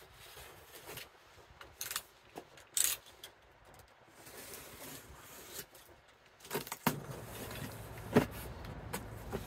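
Cardboard box being opened and its packaging handled: scattered knocks, scrapes and rustles, the loudest clack about three seconds in and another near the end. A low rumble of wind on the microphone comes in about seven seconds in.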